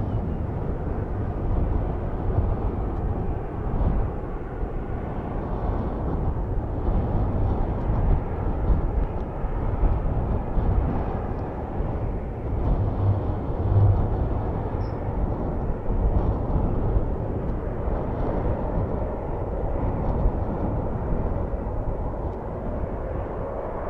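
Gusty wind rumbling on the microphone over the distant noise of a twin-engine wide-body jet airliner landing, the jet noise growing louder near the end.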